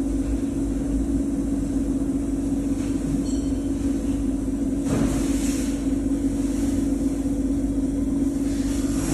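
CNC end mill grinder running with a steady machine hum, with a brief swell of higher hiss about five seconds in.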